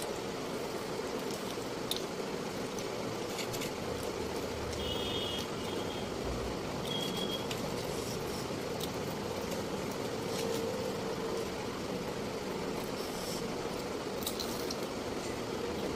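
Steady background hum and hiss, with scattered faint clicks and smacks of two people eating fried momos.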